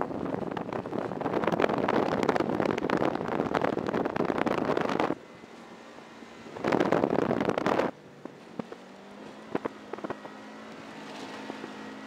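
Car driven on a dirt and grass course, heard from a microphone mounted on the outside of the body. For about five seconds wind rushes loudly over the microphone, mixed with dirt spray. A second short rush comes near the middle; after that the engine runs at a steady pitch with scattered sharp ticks.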